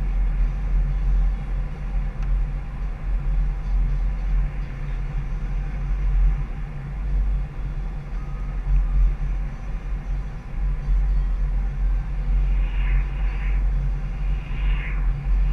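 Steady low rumble of a car driving at highway speed: road and wind noise. A few brief wavering higher sounds come near the end.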